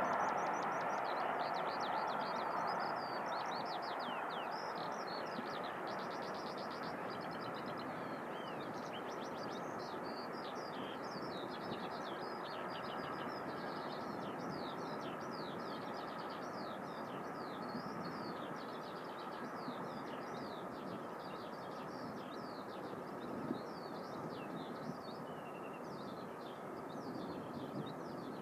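Distant steam locomotive 6201 Princess Elizabeth, an LMS Princess Royal class Pacific, running with its train; the noise of the train fades steadily as it draws away. Continuous birdsong chirps over it throughout and is the clearest sound once the train has faded.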